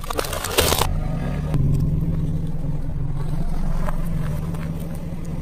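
A car tyre crushing a hard plastic lollipop toy, with a quick series of cracks and crunches for about the first second. The cracks then stop and a steady low car engine hum carries on.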